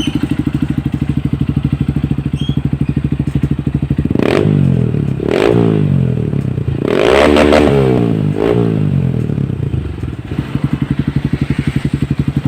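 Honda CRF150L's single-cylinder four-stroke engine, breathing through a Yoshimura full exhaust, idling steadily. About four seconds in it is blipped four times, the third rev the longest and loudest, then it settles back to idle.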